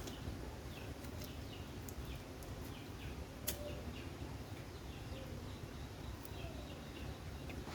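Small birds chirping, a scatter of short, quick falling chirps, over a low steady rumble. A single sharp click comes about three and a half seconds in.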